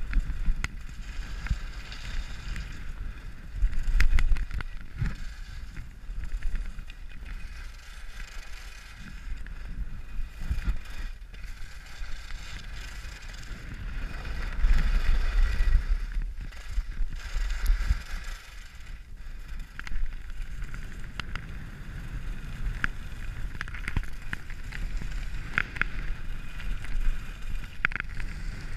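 Volkl Kendo skis carving and scraping over groomed snow, the hiss of the edges swelling and fading with each turn, over wind rumbling on the microphone. A few sharp clicks near the end.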